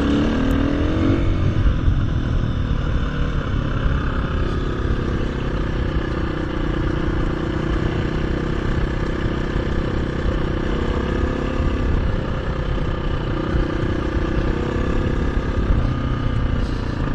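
KTM 350 EXC-F dirt bike's single-cylinder four-stroke engine running on the move, its revs climbing in the first second or so, then holding fairly steady with small rises and falls.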